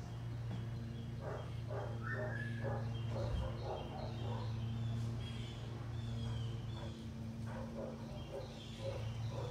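Dogs barking and yipping in the background, with short high bird chirps over a steady low hum; about two seconds in comes a held, higher call that drops away.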